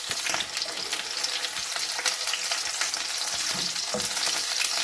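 Bottle gourd leaf parcels stuffed with egg and cheese frying in shallow oil in a nonstick pan: a steady crackling sizzle, with a spatula moving them now and then.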